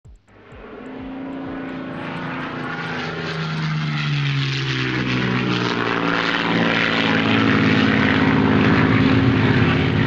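An aircraft engine growing steadily louder as it approaches, its engine tones sliding lower partway through.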